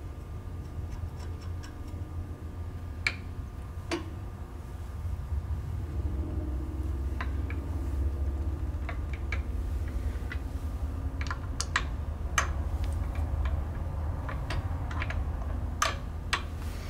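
Irregular light clicks and ticks of a Ford tractor's left brake rod and its threaded clevis being turned and worked by hand, over a steady low hum.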